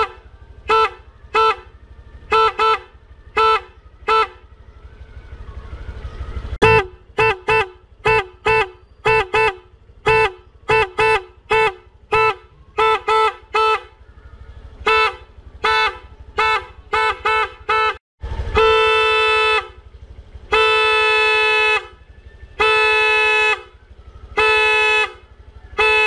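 PIAA OTO-style snail horn on a Honda Click scooter, sounded in many short toots, singly and in quick runs, then four longer blasts of about a second each in the last third.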